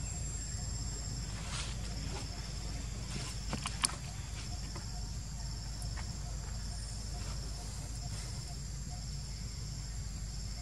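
Insects calling: a steady high whine with a second, pulsing call about once a second, over a low rumble. A few sharp clicks come about four seconds in.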